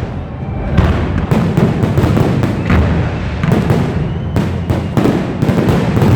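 Fireworks display: a rapid run of bangs and crackling bursts, many shells going off close together over a continuous low rumble.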